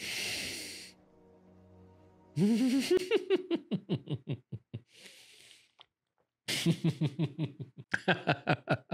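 A man giggling in two bouts of quick, repeated voiced pulses, with a sharp breath out at the start and a breath in between the bouts.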